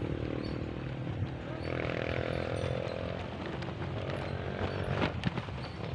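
Wind rumbling on the microphone of a moving bicycle, with the steady buzz of a small engine, loudest about two seconds in. A sharp click near the end.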